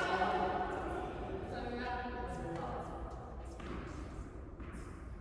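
People's voices in a large indoor tennis hall, followed in the second half by a few sharp tennis ball impacts about a second apart.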